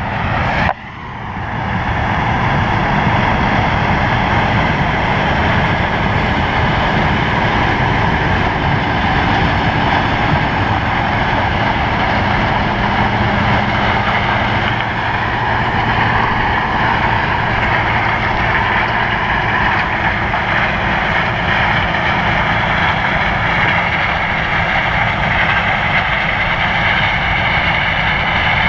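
Heavy harvest machinery engine running steadily under load, after a brief dropout about a second in.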